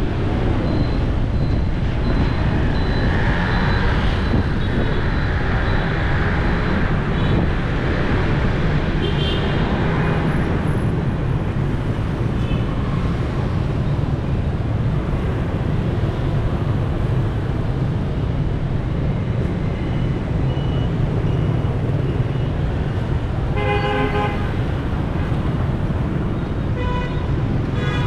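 Steady rumble of city road traffic heard while driving, with several short vehicle horn beeps scattered through it, the loudest about three-quarters of the way in.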